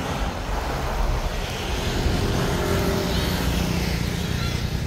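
Steady low drone of an engine.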